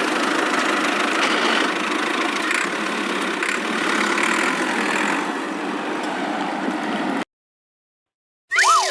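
Cartoon vehicle engine sound effect, a steady rough running noise that cuts off abruptly about seven seconds in. After a short silence, a wailing siren starts just at the end.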